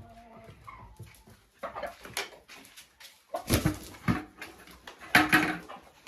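Laying hens calling in the chicken coop: faint calls at first, then several loud calls from about a second and a half in, the loudest near the middle and near the end.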